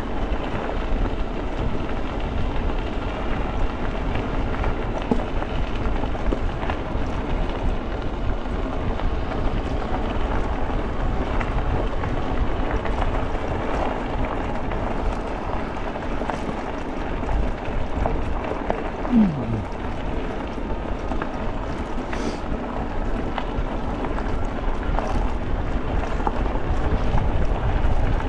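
Steady wind rush on the microphone and tyre noise from an e-bike rolling along a trail. About two-thirds of the way through there is a brief falling tone.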